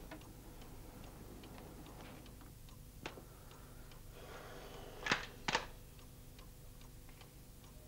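Faint, steady ticking like a clock's. About five seconds in, a short rustle and two sharp metallic clicks as a rifle's mechanism is handled and checked for a faulty firing pin.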